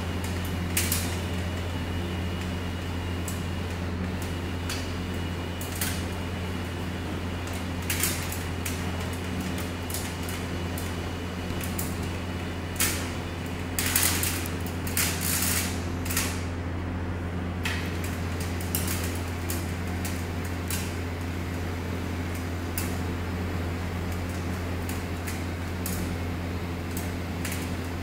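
Linear actuators of an aluminium-framed walking robot working its legs: irregular clacks and short sharp bursts over a steady low hum, busiest a little past halfway.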